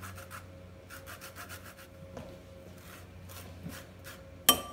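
Orange peel being zested on a fine stainless-steel rasp grater: quick scraping strokes in short runs. Near the end come a few sharp clinks, louder than the scraping.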